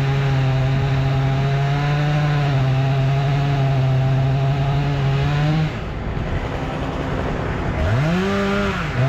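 Stihl MS 661 two-stroke chainsaw running at steady high revs while cutting through the walnut's root flares. About five and a half seconds in the engine note drops away. It revs back up about two seconds later, dips briefly and picks up again.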